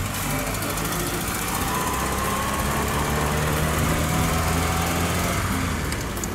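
A vintage vehicle's engine running steadily, its pitch rising gently a couple of seconds in.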